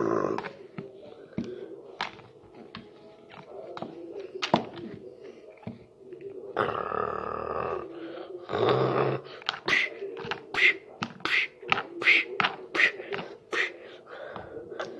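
Vocal sound effects for a toy monster fight: scattered light knocks of plastic toy figures, two longer voice sounds about halfway through, then a quick run of short percussive mouth noises, about two to three a second.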